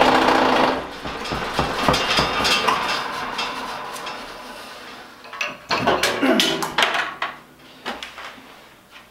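A cheap sheet-metal benchtop wood lathe is spinning a large, heavy pine block at its slowest speed, about 980 rpm, and rattling and knocking hard. About a second in the motor is switched off, and the rattle dies away over several seconds as the block coasts to a stop, followed by a few separate knocks. The vibration shows that the light lathe cannot handle a workpiece this heavy.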